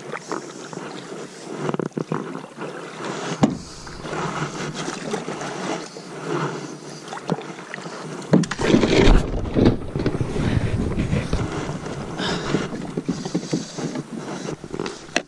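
Kayak paddle strokes and water sloshing as a Bonafide SS107 fishing kayak is paddled in to the bank, with a few sharp knocks. About eight seconds in comes louder scraping and splashing as the hull runs up into the weedy shallows at the shore.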